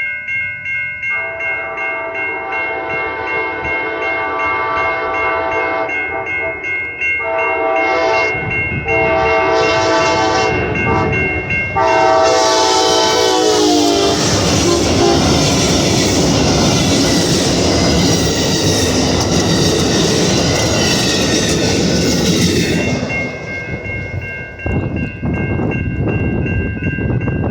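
Amtrak SC-44 Charger diesel locomotive sounding its horn in four long blasts, the last one dropping in pitch as it passes close by. The loud rush and wheel clatter of the passing passenger train follows for about ten seconds, then falls away sharply. A steady high ringing tone runs underneath throughout.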